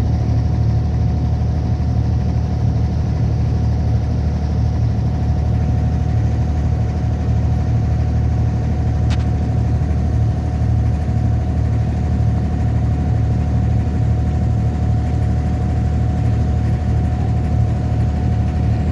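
Boat engine running steadily at a constant speed: a loud, even low drone with a steady higher whine over it, and a single sharp click about nine seconds in.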